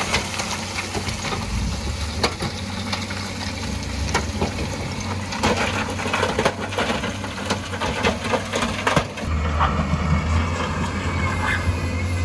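Heavy earth-moving machinery running, with stones clattering and knocking as they are scooped and dropped. About nine seconds in the clatter eases off and a steadier engine hum takes over.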